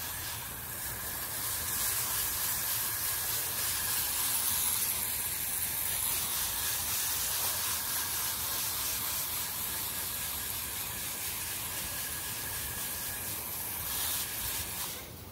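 Garden hose spray nozzle on its shower setting hissing steadily as it waters the plants, dropping away near the end.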